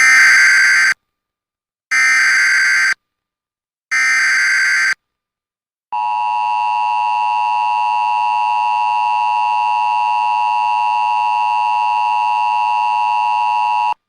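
Emergency Alert System broadcast signal for a flash flood warning. It opens with three one-second bursts of buzzing SAME header data tones, a second apart, then the steady two-tone EAS attention signal sounds for about eight seconds and cuts off abruptly.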